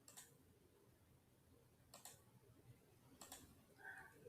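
Near silence with a few faint, sharp clicks spaced a second or more apart.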